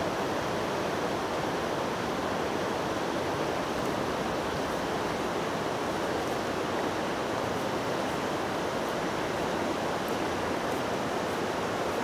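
Steady rushing of a mountain river running over a shallow rocky riffle.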